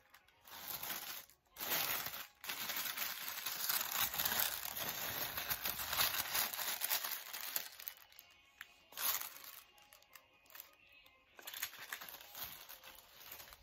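Tissue paper rustling and crinkling as hands fold it back inside a gift box: a long stretch of crackling rustle, then two shorter bursts.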